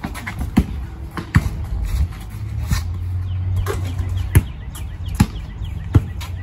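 Basketball bouncing on a concrete driveway: a handful of sharp thumps spaced about a second apart, over a steady low rumble that comes in about two and a half seconds in.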